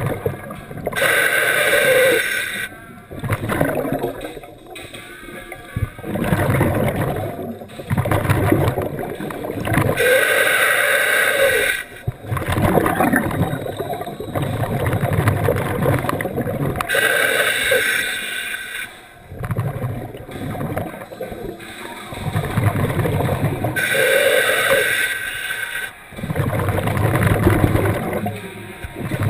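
Scuba diver breathing through a regulator underwater: a hissing inhale about every seven seconds, four times, each followed by bursts of low rumbling exhaled bubbles.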